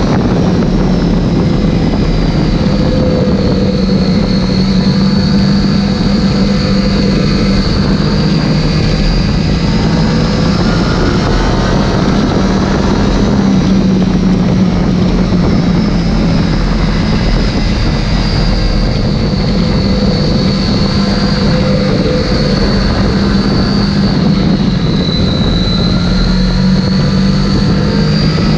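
Triumph Daytona 675R's three-cylinder engine running hard at high revs as the motorcycle laps at speed, its pitch rising and falling gently, under a steady rush of wind noise.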